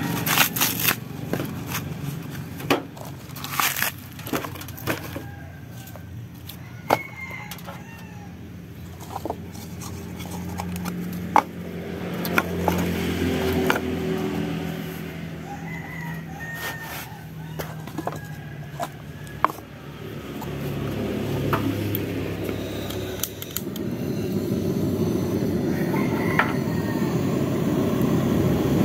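Scattered knocks and clatter of dry coconut shells being handled while a fire is laid and lit, with a rooster crowing in the background. About 23 seconds in, a steady rushing noise starts and grows louder.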